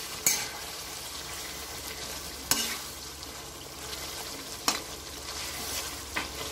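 Fish head frying in a thick onion-and-spice paste (being fried down, kosha style), sizzling steadily as a metal spatula stirs it, with four sharp clacks of the spatula against the metal pan about two seconds apart.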